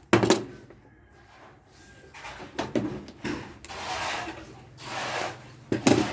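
Rubbing and scraping of cable and tools being handled on a work surface, in several patches of a second or less, with a sharp knock at the start and another near the end as something is set down.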